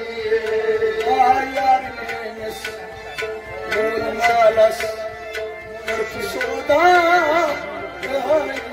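Kashmiri Sufi devotional music: tabla strokes under a melodic line that bends and wavers in pitch, over a steady held tone.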